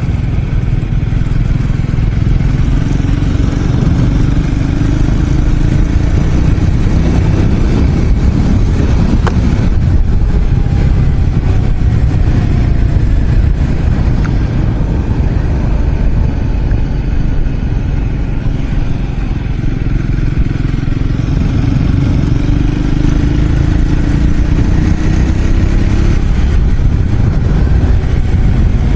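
Triumph Scrambler 400 X's single-cylinder engine and exhaust running steadily as the motorcycle is ridden, with the engine note climbing slowly twice.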